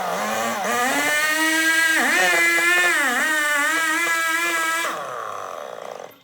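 Two-stroke chainsaw revving at high speed, its pitch dipping twice as it bogs under load in the cut. About five seconds in it drops back, and it stops abruptly just before the end.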